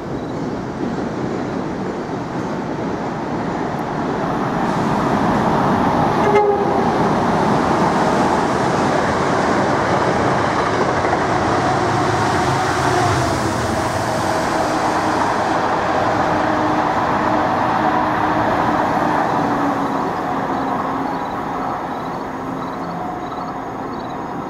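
A train running past on the rails: steady rumbling noise that swells a few seconds in, stays loud for about ten seconds and eases off near the end.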